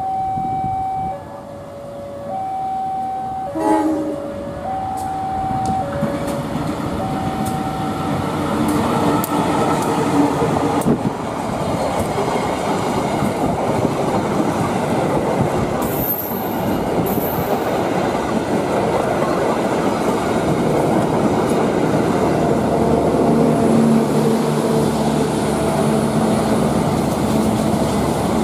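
Level-crossing warning alarm chiming in two alternating tones while a CC 201 diesel-electric locomotive gives one short horn blast about four seconds in. The alarm gives way to the Brantas passenger train passing close by, the engine rumbling and the wheels clattering over the rail joints.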